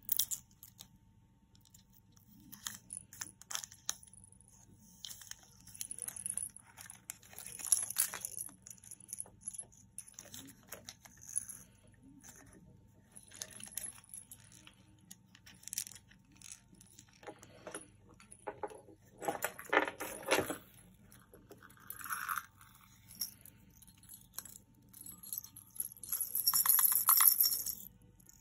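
Wooden busy cube toy being handled: scattered clicks, knocks and small jingling rattles as its panels, spinner and fittings are turned and fiddled with, with a longer rattling stretch near the end.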